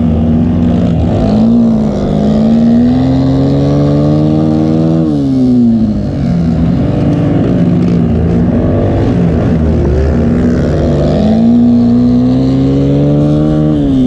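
Race vehicle engines under hard throttle. The pitch climbs for a few seconds and then drops sharply, twice, with another engine running more steadily underneath.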